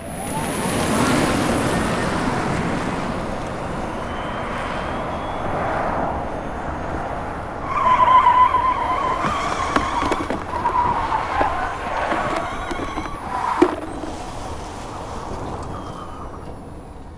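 All-electric Fiat 500e driven hard: a rush of tyre and road noise builds as it pulls away, then the tyres squeal in a wavering note through a long slide about halfway through. There is one sharp knock shortly after, and the noise then fades.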